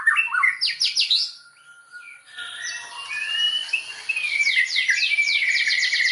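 White-rumped shama singing a varied, rapid song of quick downward-swept notes and whistles. It dips briefly about two seconds in, then picks up again with fast repeated notes.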